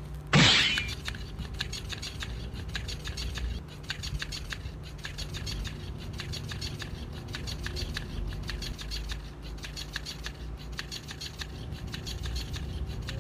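Electric flopping-fish cat toy running, its motor driving the tail with regular clicking throughout. About half a second in there is a brief loud burst of noise, the loudest moment, as the cat noses the fish.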